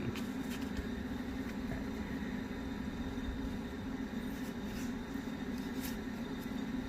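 A steady low background hum, with a few faint clicks of objects being handled.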